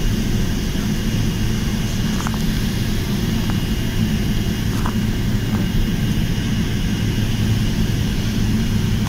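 Jet airliner cabin noise while taxiing: the under-wing turbofan engines and cabin air give a steady low drone with a thin, steady high whine.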